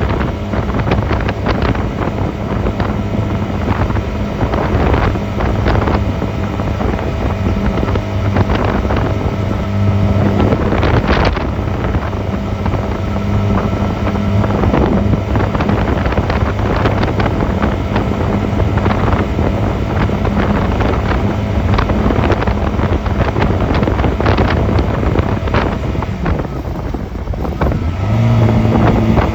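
Honda 250cc motorcycle engine running under way, with wind buffeting the microphone. The engine note comes up louder and a little higher about a second before the end.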